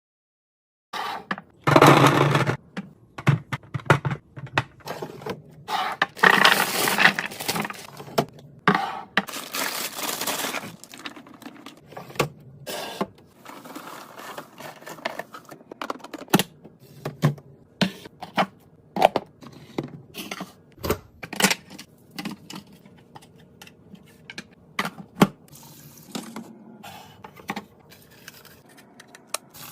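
Kitchen restocking sounds: containers and packaging handled and set down in many small clicks and knocks, with a few longer rushing noises in the first ten seconds.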